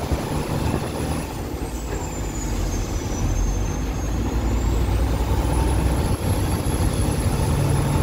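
Peterbilt truck engine and road noise heard inside the cab while driving, a steady low drone.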